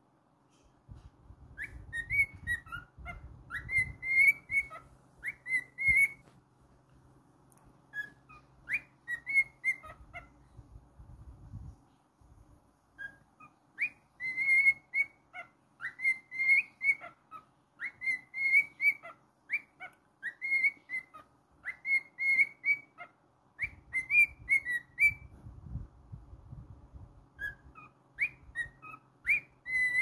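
Male cockatiel whistling a song in quick, repeated short phrases, with a pause of a few seconds near the end before it starts again. A faint low rumble sits underneath at times.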